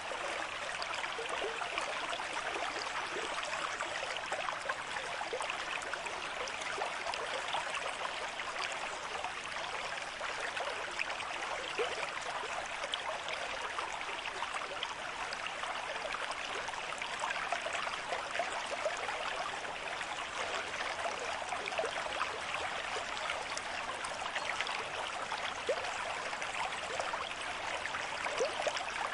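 Stream of water flowing at a moderate rate: a steady rush with many small gurgles and splashes.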